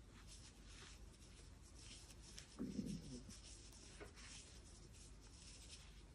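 Faint scratching and rubbing of yarn being worked through with a crochet hook, with one brief low sound about halfway through.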